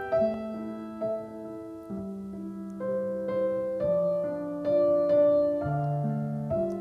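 Shigeru Kawai grand piano playing a slow, gentle hymn introduction: sustained chords under a quiet melody, with a new note or chord about every half second to a second.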